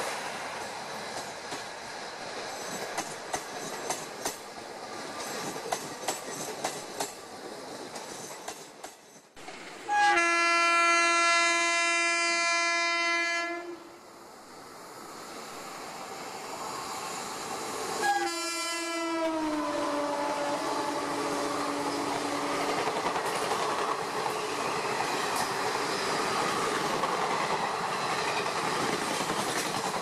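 A passenger train passing at speed, its wheels clicking over the rail joints. Then a locomotive horn sounds one long steady blast of about four seconds, and a second blast some eight seconds later drops in pitch as the locomotive goes by, followed by the steady noise of its coaches passing.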